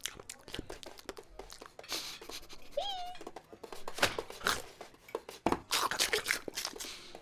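Cartoon sound effects of a cat: a run of rustles, scuffs and clicks with a couple of louder knocks, and one short meow about three seconds in.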